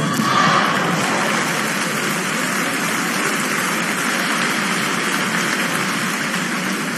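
Arena crowd applauding, an even, steady clapping that slowly dies down.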